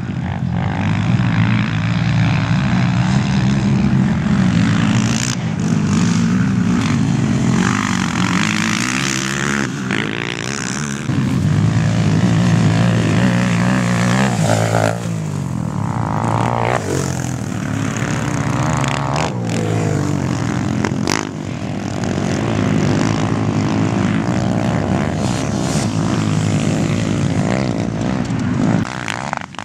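Racing quad bike (ATV) engines revving and running hard around a dirt track, the engine note rising and falling as the quads accelerate and back off through the corners.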